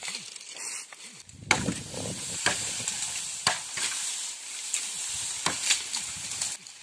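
Machete blows chopping into a standing tree trunk, about one a second, over a steady hiss.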